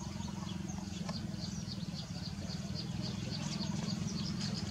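Outdoor background sound: a steady low hum with many short, high-pitched chirps repeating over it.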